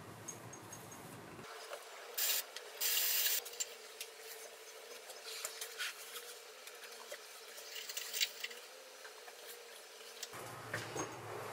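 Soft rubbing and rustling of a hand stroking a cat's fur, in two short bursts about two and three seconds in, followed by faint scattered rustles and small taps as the cat moves about on the desk.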